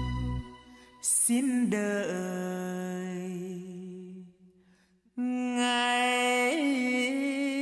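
Background music with slow, held notes. It fades almost to silence about four seconds in and starts again about a second later.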